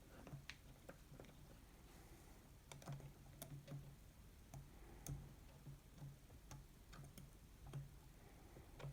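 Faint, irregular small clicks and ticks from a disc-detainer pick working the rotating discs inside an Abloy Protec 1 padlock as it is picked.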